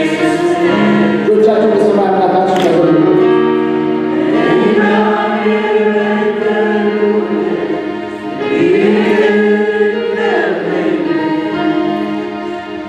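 Church congregation singing a worship song together in many voices, with long held notes.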